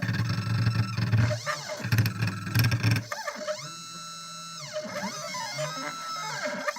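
CNC 1310 machine's stepper motors whining, the pitch sweeping up and down as the axes speed up and slow down. For about the first three seconds there is also a loud low grinding buzz: the recurring 'Grinch grunch' fault.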